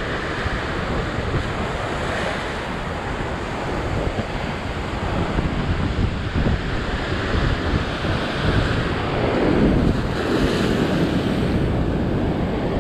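Surf breaking and washing over a rock ledge, with strong wind buffeting the microphone. A bigger wave breaks toward the end.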